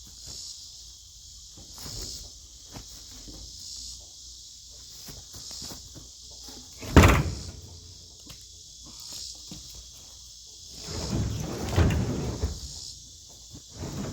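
Cedar logs being loaded by hand: about seven seconds in a log lands with a single loud thud, and near the end another log scrapes and knocks for a second or so, with smaller knocks between. Insects chirr steadily in the background.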